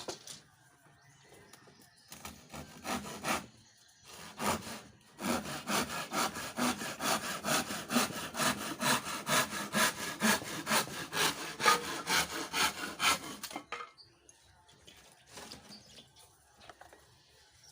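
Hand saw cutting a piece of lawaan hardwood: a few slow starting strokes, then quick, even back-and-forth strokes at about three a second, stopping a few seconds before the end.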